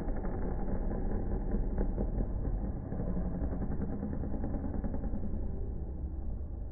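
Several motocross dirt bikes running around the track, their engines blending into a steady drone that gets a little quieter in the second half.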